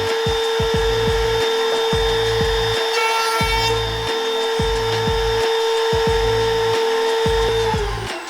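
An electric power-tool motor running at a steady whine, then winding down in pitch near the end, over background music with a steady beat.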